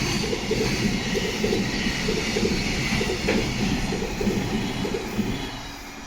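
Train running past, its wheels clattering over the rails in a steady rhythm, the sound dying away about five and a half seconds in.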